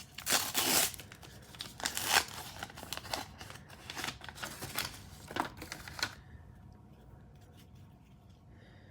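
Trading-card pack wrapper crinkling and tearing as it is opened, with the cards inside rustling as they are handled; the rustling stops about six seconds in.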